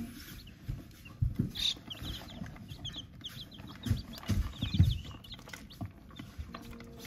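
A brooder of young chicks peeping, many short high cheeps overlapping. Several low thumps come through, the loudest around the middle.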